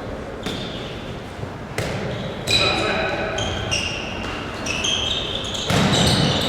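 Handball game play in a sports hall: the ball bouncing and thudding on the court several times, with short high squeaks of shoes on the floor and players' voices echoing.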